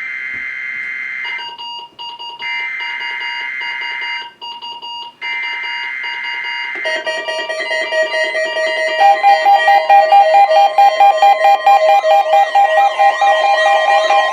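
NOAA Weather Radio required weekly test alert. It opens with three screeching data bursts of the digital alert header, about two seconds each with short gaps, over a steady tone near 1 kHz. From about 7 s in, several weather radio receivers set off their own alarms at once: a dense stack of beeping tones that pulses rapidly from about 9 s in.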